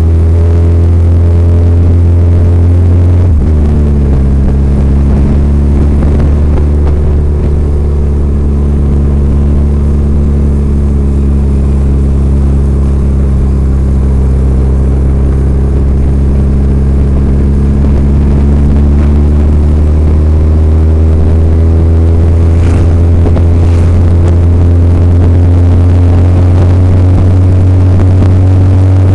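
Yamaha FJR1300's inline-four engine running steadily under way. Its pitch drops sharply about three seconds in at a gear change, sags slowly, then climbs gradually through the last third as the bike speeds up.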